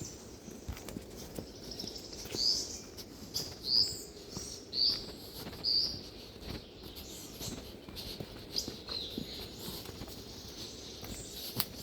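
A bird calling a run of about five short, sharp notes, roughly a second apart, in the first half, over footsteps on a forest trail.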